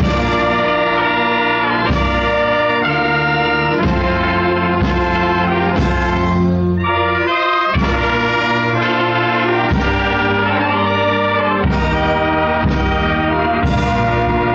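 Brass band music with trumpets and trombones, playing full held chords that change about once a second.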